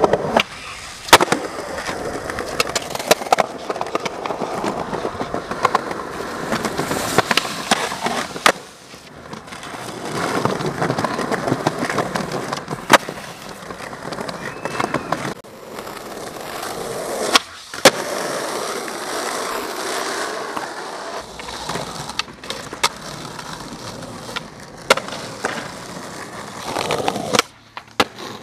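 Skateboard wheels rolling on rough concrete, broken by sharp cracks of the board popping, landing and striking ledges, the loudest about a second in and again about two thirds of the way through.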